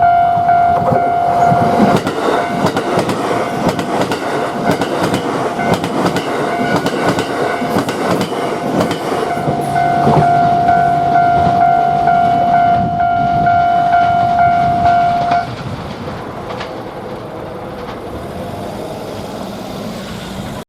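A train running past a level crossing, its wheels clicking rapidly over the rail joints, while a steady high warning tone sounds at the start and again from about ten seconds in. The tone stops about fifteen seconds in and the train noise drops to a quieter rumble as the train moves away.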